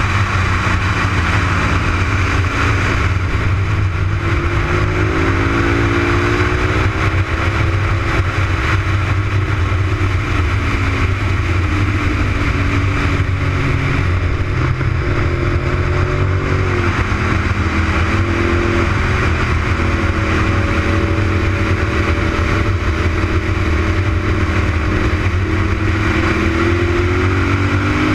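Honda RC51's V-twin engine at track speed, its pitch climbing and falling repeatedly with throttle and gear changes, with a sharp drop about two-thirds of the way through, under a steady rush of wind noise.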